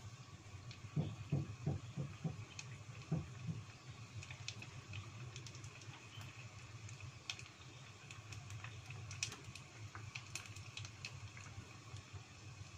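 Hot oil sizzling with scattered crackling pops as battered tofu sempol deep-fries in a small pot. A few soft knocks come between about one and three seconds in.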